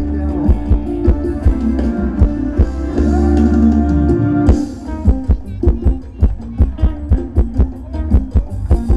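Thai ramwong dance music played by a live band, with a steady drum beat. About halfway through, the deep held bass notes drop out and the drumming carries on alone at the front.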